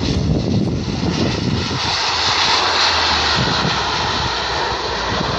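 Engines of a Dash 8 turboprop airliner passing close by, a steady rushing roar that swells about two seconds in and then holds.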